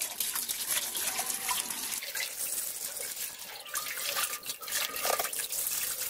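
Water from a garden hose splashing into a metal basin and over brake master cylinder parts held under the stream as they are rinsed, with a steady hiss of running water and small splashes throughout.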